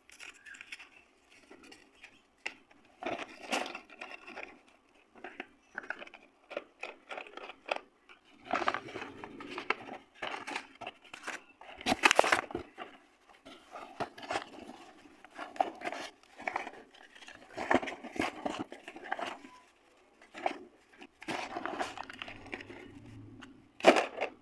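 Paper-wrapped packets of slate pencils being handled in a cardboard box: the wrappers rustle and crinkle in irregular bursts. Now and then a packet knocks sharply against the others or the box, loudest about halfway through and again near the end.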